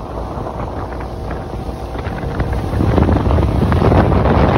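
Small motorboat under way across open water: wind rushing over the microphone on top of the engine and the hull running through the water, getting louder about three seconds in.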